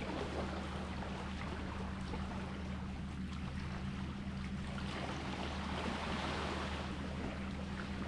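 Sea waves washing and lapping, swelling and easing, over a steady low hum.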